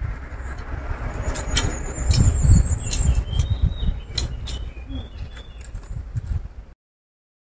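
A long-handled digging tool scraping, chopping and dragging stony soil in repeated strokes, with clicks of stones and a low rumble. Birds chirp in the background, and the sound cuts off abruptly near the end.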